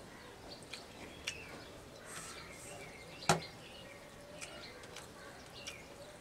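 Quiet eating sounds: fingers working rice on a steel plate, with small clicks and one sharp click about three seconds in. Faint bird chirps can be heard in the background.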